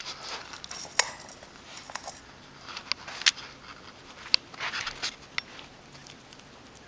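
A striped skunk eating raw carrot: irregular sharp crunches and clicks as it bites and chews, with some clinks against its stainless steel food bowl near the start.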